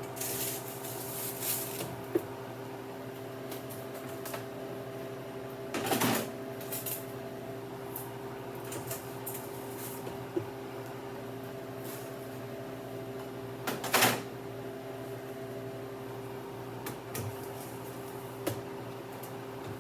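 Stainless steel freeze-dryer trays being handled and slid onto the shelves of a Harvest Right home freeze dryer. There are a few short rattling clatters, the loudest near the start, about six seconds in and about fourteen seconds in, over the dryer's steady hum.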